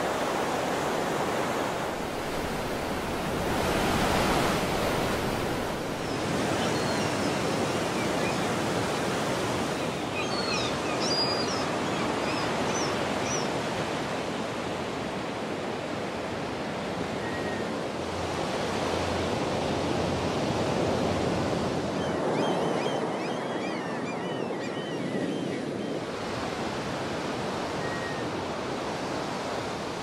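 Ocean surf washing on a beach, a steady rush that swells and eases, with short high bird calls about a third of the way in and again later.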